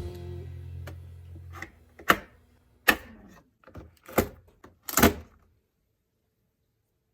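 Background music fading out, then about five sharp clicks and knocks roughly a second apart.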